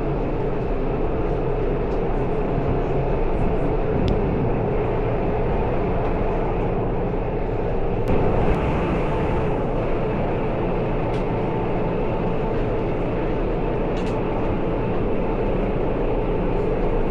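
Train running, a steady rumble with a few faint clicks scattered through it.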